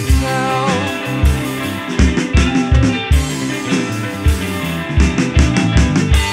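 Alternative/progressive rock band recording in an instrumental passage: guitar over a steady drum beat.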